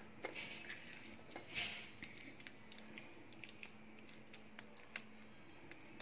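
Faint soft squishing and small sticky clicks of greased hands pressing and kneading warm almond paste into a ball against a steel plate.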